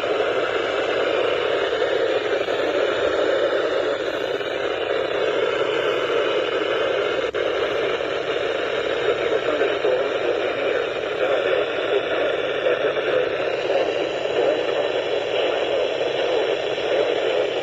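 Steady hiss of radio static from a weather-radio receiver on a weak signal, with no clear voice coming through.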